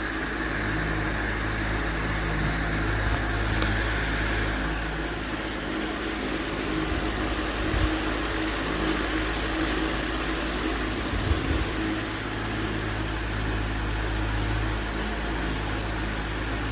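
A steady mechanical running noise: a low hum with a broad hiss over it, evenly loud throughout.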